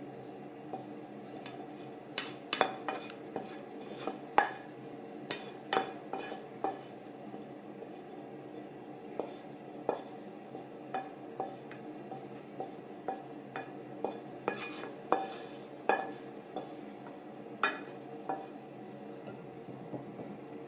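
Cutlery clinking against dishes in irregular sharp clicks, a few a second, starting about two seconds in.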